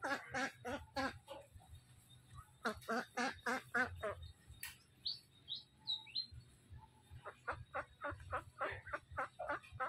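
Ducks quacking in three quick runs of calls, several quacks a second. In the lull about halfway through come a few thin, high, falling peeps.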